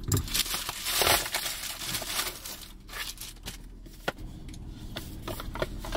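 A plastic shipping mailer being ripped open and crinkled by hand. The tearing and rustling are densest in the first second or so, then give way to lighter scattered crackles as the packaging is handled.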